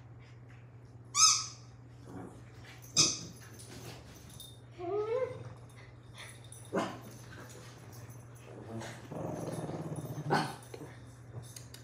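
Small dogs playing over a plush toy: two short, high-pitched yelps, a rising whine about five seconds in, and a low growl about nine seconds in.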